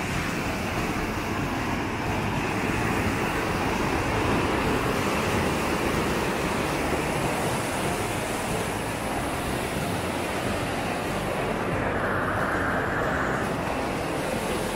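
A steady, loud rushing noise that keeps up without a break.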